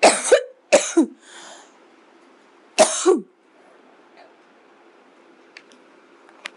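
A woman coughing: two sharp coughs in quick succession at the start, a softer breath after them, and one more cough about three seconds in.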